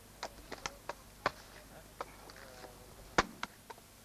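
Irregular sharp knocks and chops as coconuts are split and husked by hand, about a dozen strikes, the loudest about three seconds in. Faint voices underneath.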